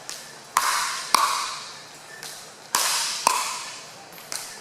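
Plastic pickleball popping off paddles and bouncing on the court during a soft dink rally: sharp pops in pairs about half a second apart, twice, with a fainter tap near the end. Each pop rings out in an echoing hall.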